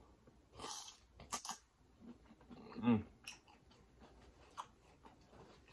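A man eating a sauce-coated tiger prawn close to the microphone: soft wet mouth clicks and smacks, a short breathy sound under a second in, and a brief hummed "mm" about three seconds in.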